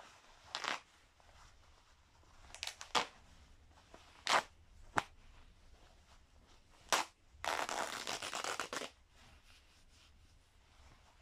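Lab coat fabric being ripped by hand: several short rips with quiet pauses between them, then one longer tear of about a second and a half.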